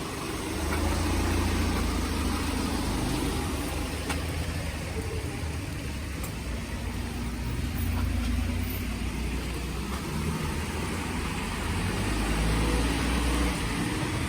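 Road traffic: car engines running at low speed, swelling about a second in and again near the end, over a steady hiss.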